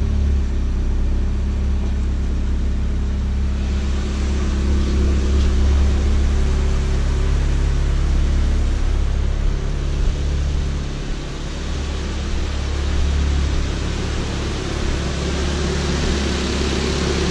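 Nissan KA24DE 2.4-litre inline-four engine idling steadily, run after a coolant flush to check for temperature swings that would mean air in the cooling system. A steady hiss joins about four seconds in.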